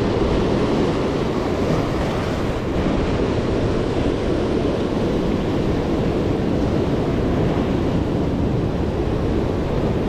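Steady wind buffeting the microphone over the wash of sea surf breaking on the shore.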